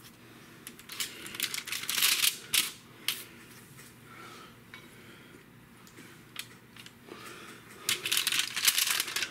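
Aluminium foil on a baking sheet crinkling, with light clicks and scrapes, as melted butter is brushed onto empanadas with a silicone pastry brush. It comes in two spells, about one to three seconds in and again near the end, with a few sharp clicks between.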